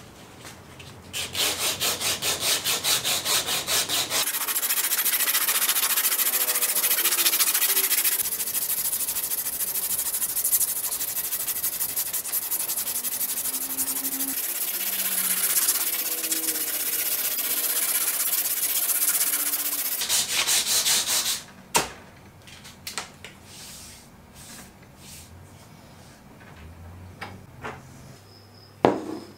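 Abrasive cloth strip pulled back and forth around an axe handle, shoeshine-style sanding: a loud, steady rasping hiss lasting about twenty seconds, in quick pulsing strokes for the first few seconds. It stops, and a few light knocks follow.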